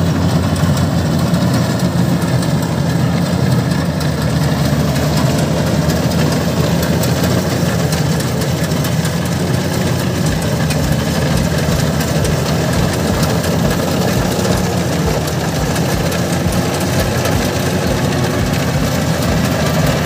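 Maxxi Bimo combine harvester's engine and machinery running steadily as it cuts ripe rice, a continuous low drone.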